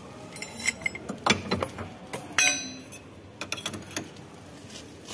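Steel pry bar clanking and clinking against a car's front suspension as it levers the lower control arm to seat its ball joint. The clanks are irregular, and the loudest one comes about halfway through and rings briefly.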